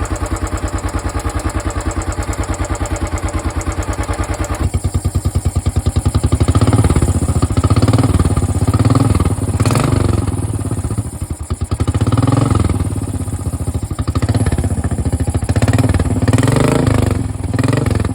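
Royal Enfield Bullet single-cylinder engine running: a steady, even idle beat, then from about five seconds in the throttle is opened and closed repeatedly, the engine rising and falling in several revs.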